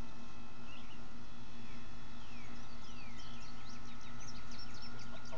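Birds chirping over a steady low hum; about three seconds in, a quick run of short, falling chirps.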